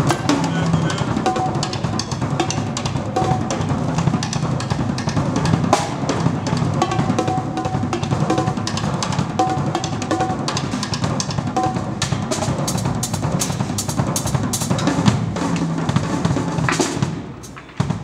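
A drum kit being played during a sound check: bass drum, snare and cymbals in a steady groove, with quicker strokes in the second half. The playing breaks off shortly before the end.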